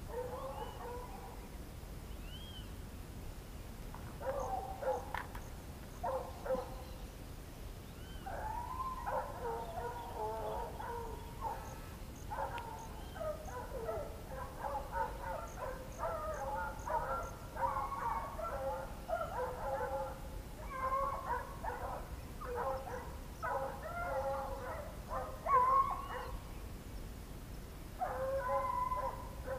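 Boar-hunting dogs whining and yelping, many short, high calls overlapping. They start about four seconds in and keep up almost without a break from about eight seconds.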